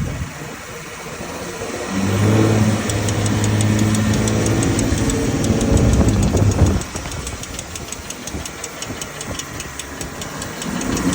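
Rapid, evenly spaced clicking, several ticks a second, from the front brakes of a BMW M340 with an aftermarket small brake kit, under the car's engine note, which pulls for a few seconds and then drops away about two-thirds in. The owner puts the clicking down to play in the loose brake pads in the calipers.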